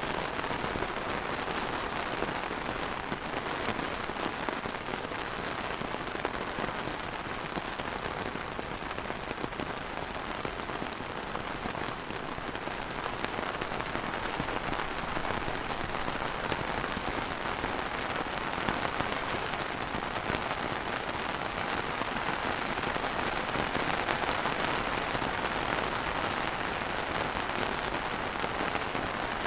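Steady rain falling on a surface, a dense even patter of many drops with no thunder.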